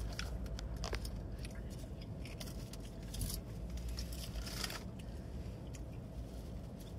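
Steady low rumble of a parked car's cabin, with small clicks and scrapes of a plastic fork picking fruit from a plastic cup, a brief scrape about four and a half seconds in.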